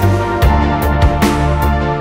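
Electronic background music with a steady beat, about two and a half beats a second, over a bass line that shifts about half a second in.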